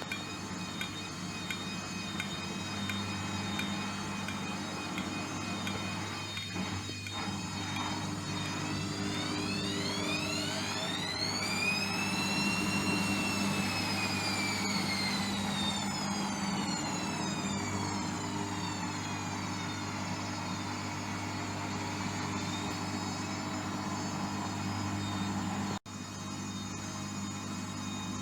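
Hotpoint washing machine's drum motor humming steadily as the drum turns, with a whine that climbs in pitch and then falls away over several seconds in the middle: the drum speeding up and slowing again while distributing the load.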